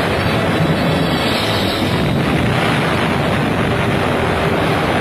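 Propeller-driven WWII bombers flying over, their piston engines making a dense, steady drone.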